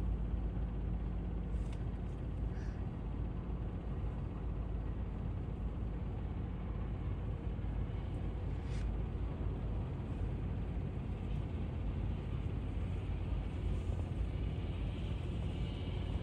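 Twin-engine wide-body jet airliner on final approach with its landing gear down, its engines a steady low rumble, with a brighter hiss coming in near the end.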